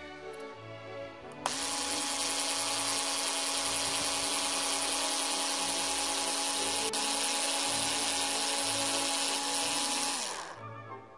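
Cordless screwdriver fitted with a keyless hex-shank chuck adapter, spinning a thin drill bit through a wooden craft stick. The motor starts suddenly about a second and a half in, runs at a steady pitch with a whine, and winds down near the end.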